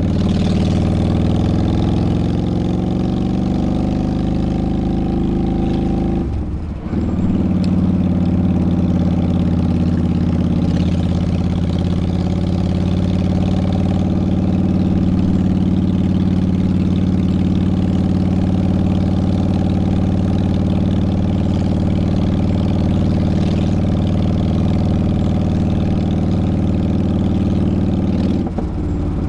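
Motorcycle engine running under way. Its pitch rises slightly over the first few seconds, dips briefly about six seconds in, then holds steady, with another short dip near the end.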